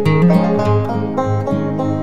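Background music: a quick bluegrass-style tune on plucked strings, banjo and guitar, with steady, even notes.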